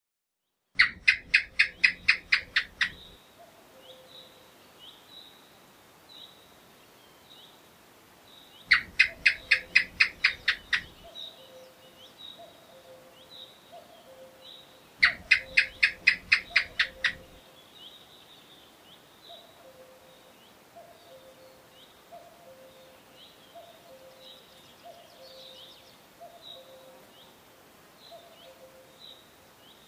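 House gecko calling: three series of about ten sharp chirps each, fast and evenly spaced, each series lasting about two seconds and coming about seven seconds apart. Faint birdsong and a repeated low call sound in the background.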